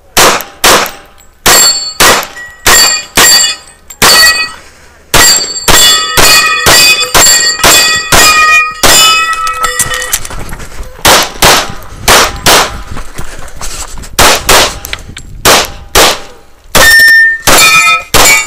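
A pistol fired in rapid strings of shots, with steel target plates ringing out as they are hit. There are brief pauses between the strings.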